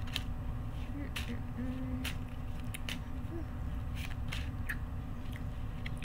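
A person chewing crunchy food: a series of sharp, irregular crunches, one every half second to a second.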